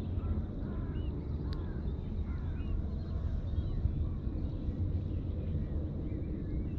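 Calm shoreline ambience: a steady low rumble, with short high bird chirps scattered through and one sharp click about a second and a half in.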